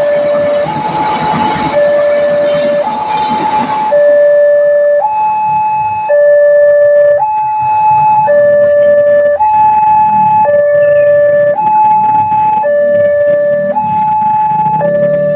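Railway level-crossing barrier alarm sounding a steady two-tone hi-lo siren, each tone held about a second before switching. For the first four seconds a passing train's rushing rumble runs under it, then stops, leaving the alarm alone.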